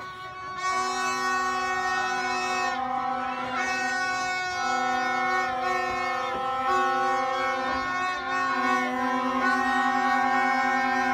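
Several plastic fan horns (vuvuzela-style trumpets) blown together in long, held notes at different pitches that overlap and start and stop at different times, growing loud about a second in.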